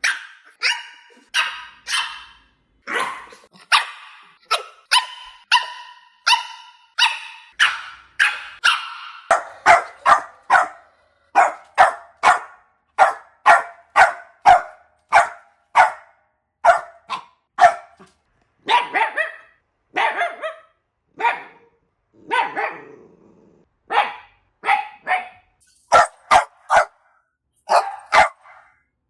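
Puppies barking: a long run of short, high-pitched barks, about one or two a second, turning somewhat lower in pitch about nine seconds in.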